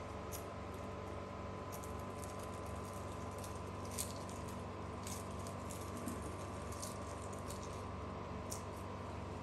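Scattered light clicks and crinkles of plastic snack containers being handled, the sharpest about four seconds in, over a steady hum.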